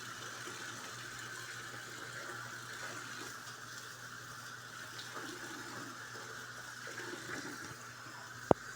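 Brastemp Clean 7 kg top-loading washing machine in its rinse cycle: steady rushing of water in the tub over a low motor hum. A single sharp click sounds near the end.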